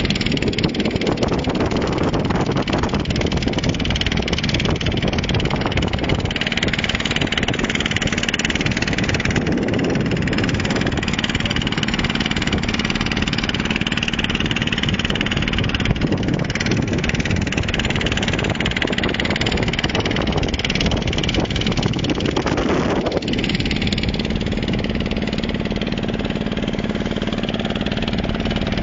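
Inboard engine of a wooden lake boat running steadily under way, under a constant rushing noise.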